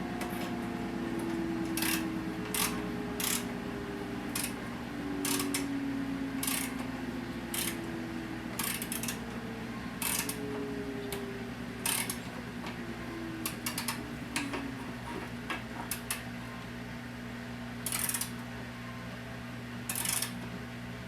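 Hand tools and metal mower parts clicking and clinking during reassembly, with a sharp separate click every second or so over a steady low hum.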